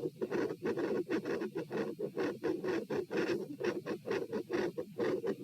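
Fast heartbeat heard through a stethoscope at the pulmonic area, a little over two beats a second, each beat a quick pair of heart sounds in an even, rapid rhythm.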